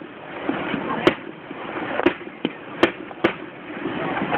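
Fireworks aerial shells bursting: a run of about five sharp bangs, the loudest about a second in, over a steady background noise.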